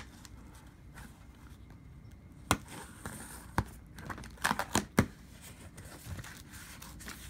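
Shipping package being opened by hand: packaging rustling and tearing, with several sharp clicks and knocks from about the middle on.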